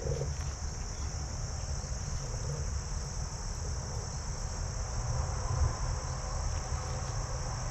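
Steady high-pitched chorus of field insects such as crickets, running without a break, over a low rumble.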